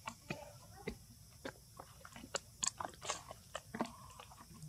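Irregular crinkling and crackling clicks, a dozen or so sharp snaps scattered unevenly, as a baby monkey handles a thin clear plastic cup on dry leaf litter.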